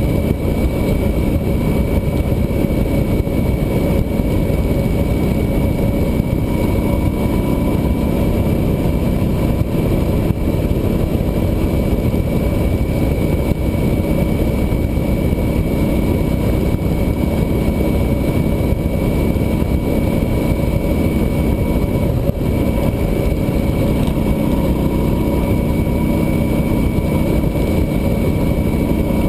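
Cruiser motorcycle at steady highway speed: engine running under a heavy, even rush of wind noise on the microphone, with a thin steady whine over it.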